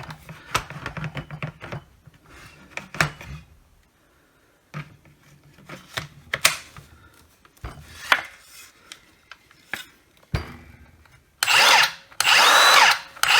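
Clicks and knocks as the battery is fitted and the saw is handled, then near the end the Milwaukee cordless circular saw's motor spins up twice, briefly and then for about a second, with no blade fitted. This is a test run to check that the repaired motor drive still works.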